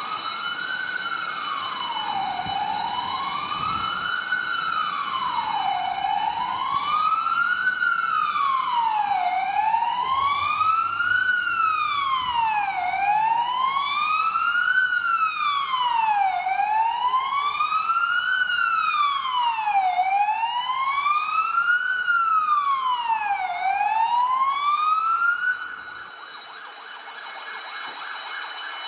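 Fire engine siren on a slow wail, rising and falling about once every three and a half seconds, then cutting off near the end. A steady high-pitched tone sounds underneath.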